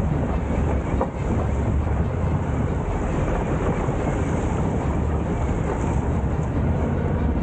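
Adventure motorcycle riding an off-road track, with a steady rumble of engine and ground noise.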